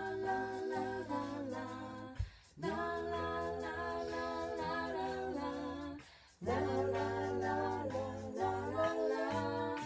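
Wordless a cappella singing, a melody hummed or sung in held notes without accompaniment. It comes in three phrases, with short breaks about two seconds in and about six seconds in.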